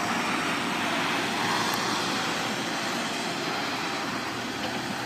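A steady, even rushing noise with no distinct events or tones.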